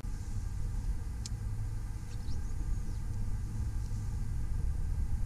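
A low, uneven rumble of wind buffeting the microphone, over a faint steady hum, with a single sharp click about a second in.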